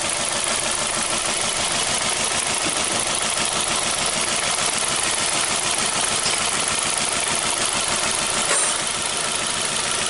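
2012 Hyundai Accent four-cylinder engine idling under the open hood, a steady run with a fast, fine ticking. It is misfiring on cylinder 3, whose fuel injector gets no voltage or current pulse from the ECU.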